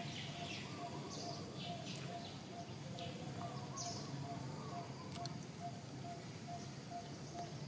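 Birds calling in the background: scattered short chirps and quick whistled sweeps over a steady, evenly repeated piping note about twice a second.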